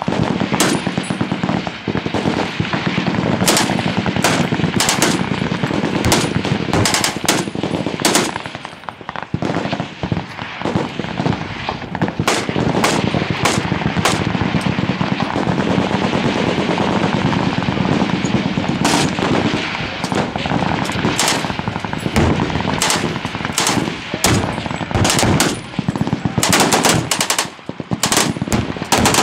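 Machine guns firing on a range: dense, near-continuous automatic fire with sharp loud cracks standing out. The fire slackens briefly around ten seconds in, and near the end it breaks into separate bursts with short pauses between them.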